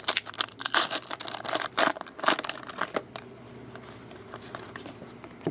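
Plastic card pack wrapper crinkling and tearing as it is opened, a rapid run of crackles through the first three seconds that thins to a few faint rustles after.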